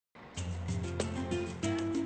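Background music with sustained bass notes and regular drum hits, starting just after the very beginning.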